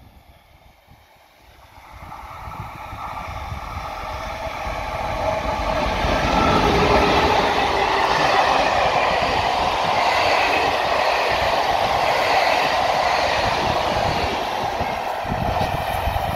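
An ONCF passenger train hauled by a Hitachi E 1257 electric locomotive passing close by at speed. The rolling noise of wheels on rail swells over the first few seconds, then holds as a loud, steady rush with rail clatter as the coaches go by, and eases slightly near the end.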